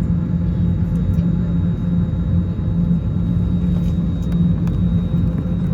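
Steady low rumble of cabin noise inside an Airbus A321neo airliner, with a pulsing hum underneath.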